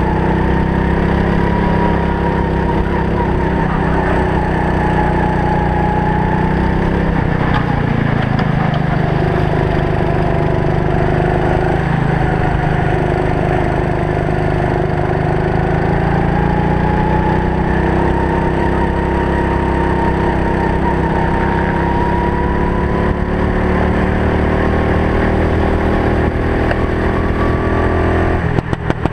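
Racing kart engine running hard, its pitch dropping as it slows for corners and climbing again under throttle, several times over, heard from a helmet camera. A few short knocks come just before the end.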